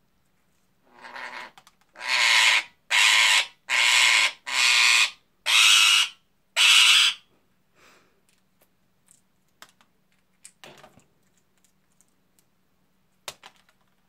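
Indian ringneck parakeet giving a rapid run of about seven harsh squawks over some six seconds, the first one softer. Faint scattered clicks and taps follow.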